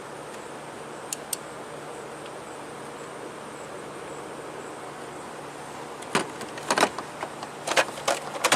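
Several sharp clicks and knocks over a steady faint hiss: two light clicks a little over a second in, then a cluster of louder ones in the last two and a half seconds.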